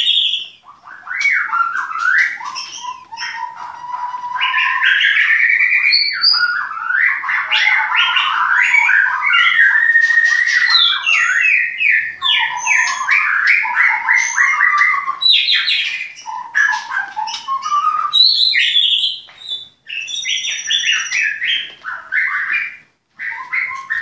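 White-rumped shama (murai batu) song: a long, varied stream of whistled phrases and fast trills, breaking off briefly a few seconds before the end.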